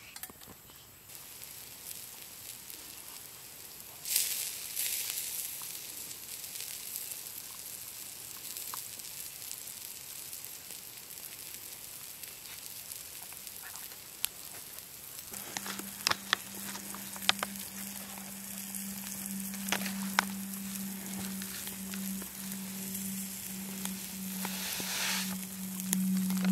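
Steaks sizzling on a wire grill over campfire coals, a steady hiss with scattered crackling pops. A steady low hum joins about halfway through.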